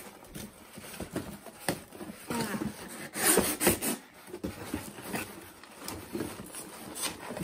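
A taped cardboard shipping box being torn open by hand, its flaps pulled back, with scraping and rustling of cardboard and the loudest tearing about three seconds in; then hands rummaging among the boxed sets inside.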